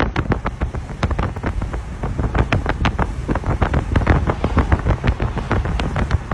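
Loud wind buffeting the microphone, a dense rumbling roar broken by many irregular crackles and thumps.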